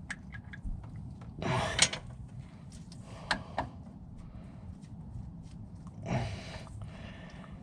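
Working and handling noises under the car: a short scraping rush ending in a sharp click about one and a half seconds in, two clicks a little later, and another brief rush about six seconds in.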